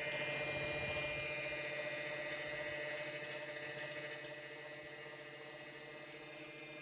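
DJI 2212/920kv brushless motors of an F450 quadcopter spinning with a steady whine and a rapid knocking. The sound swells about a second in, then eases slightly.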